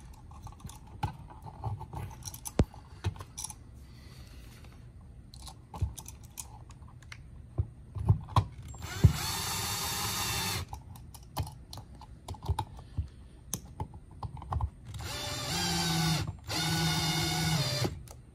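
Power drill/driver running in three short spells, driving the receptacle's mounting screws into the electrical box, with handling clicks and knocks between the spells.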